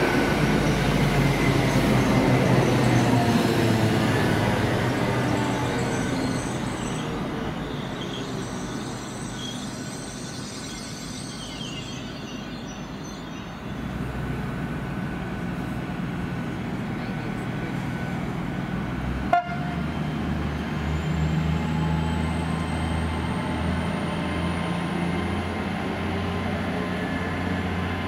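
Trains at a station platform. One train's noise fades away over the first dozen seconds. Then a steady lower engine hum starts, joined later by a thin rising whine, with a single sharp click about two-thirds of the way through.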